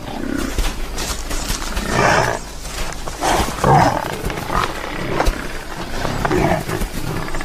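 Cape buffalo calling: several short, low calls spaced through a few seconds, the loudest a bit before the middle.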